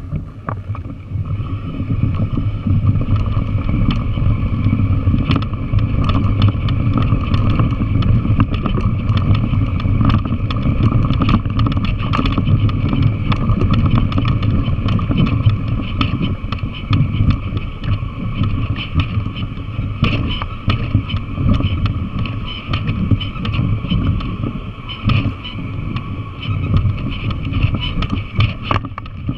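Yamaha TW200 trail bike's single-cylinder engine running steadily while riding over loose rock, with frequent clicks and rattles from the rough ground.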